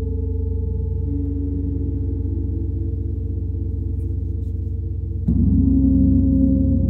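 Gongs ringing in a sustained low, droning wash of overlapping tones. A pulsing tone comes in about a second in, and a sudden louder gong stroke lands about five seconds in and rings on.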